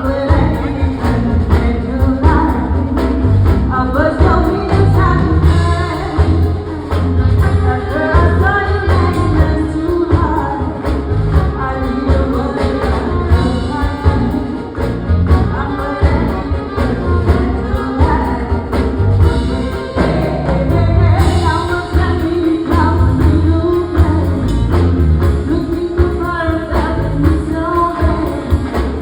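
Live band playing with a singer, a steady beat of sharp percussive strikes running under the vocal.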